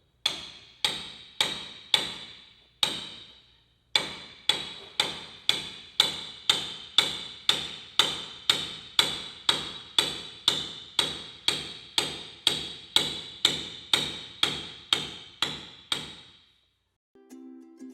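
Caulking mallet striking a caulking iron, driving caulking into the seams of a wooden boat's planking: steady blows about two a second, each ringing briefly. There is a short pause about three seconds in, and the blows stop near the end.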